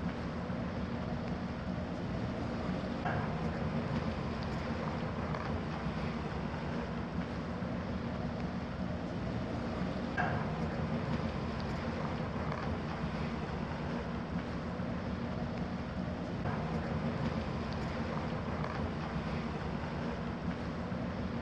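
Steady wind noise on the microphone with a low, constant hum underneath.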